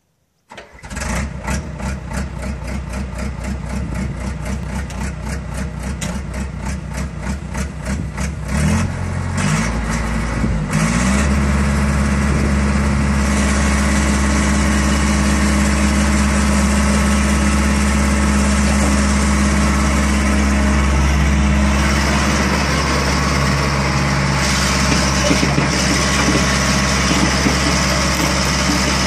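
Liebherr 912 tracked excavator's diesel engine cranked on its starter for about eight seconds with an even rapid beat, then catching, rising in pitch and settling into steady running. From about two-thirds of the way in the engine runs under hydraulic load as the boom is swung and raised.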